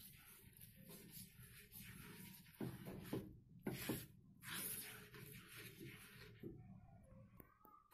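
Silicone spatula stirring chocolate powder, margarine and milk in a nonstick pan: soft scraping and swishing, with a few louder strokes around the middle, then quieter near the end.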